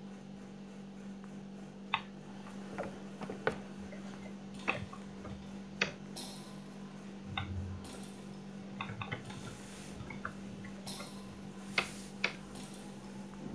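Computer keyboard keys being typed: a dozen or more irregular, scattered clicks, some in quick runs, over a steady low hum.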